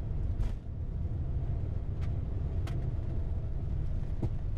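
Steady low rumble in a Boeing 747-8 cockpit during the landing rollout, with the thrust reversers deployed and the wheels running down the runway. A few short clicks sound over it.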